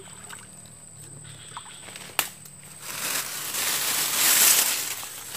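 Leafy branches and dry grass rustling and crackling as they are pulled off a wire-mesh catfish trap, with one sharp snap about two seconds in and the rustling loudest near the end.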